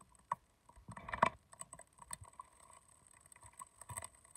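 Faint, irregular clicks and light taps, scattered a few at a time. The loudest cluster comes about a second in and a smaller one near the end.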